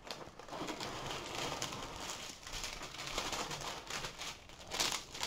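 Clear plastic cover film on a diamond painting canvas crinkling and rustling as it is handled and peeled back from the sticky canvas, with a louder crackle near the end.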